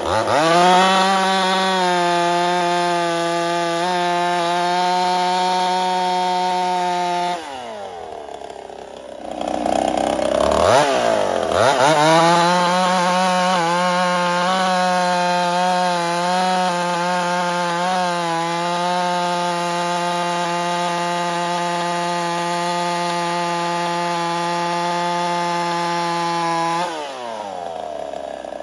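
Ported Husqvarna 55 two-stroke chainsaw running flat out at steady high revs, most likely through two long cuts. It falls away toward idle about seven seconds in, revs back up, and falls away again near the end. The saw is losing power, which the operator takes for worsening scoring in its aftermarket Warwick cylinder, a cylinder he thinks is starting to fail.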